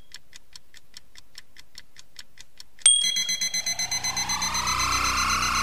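Clock-ticking sound effect, rapid and even. About three seconds in, a bell-like ding cuts in, followed by a swelling tone that rises in pitch.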